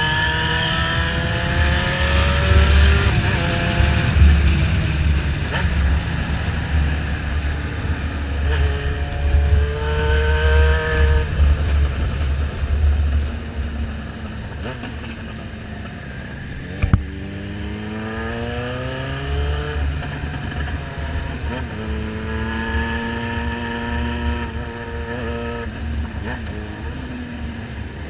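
Motorcycle engine under way, its pitch repeatedly climbing and then dropping as the rider accelerates, shifts and rolls off, over a steady low rumble of wind.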